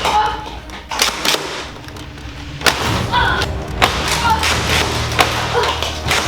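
Several sharp, irregularly spaced thuds and clacks from Nerf foam-dart blasters being fired and darts striking, over background music.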